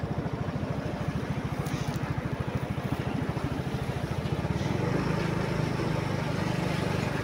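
Small motorcycle engine running as it is ridden, a fast, even putter that grows louder a little past halfway.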